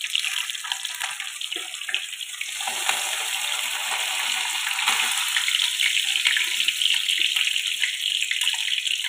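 Small boriola fish deep-frying in hot oil in a karahi: a steady, crackling sizzle.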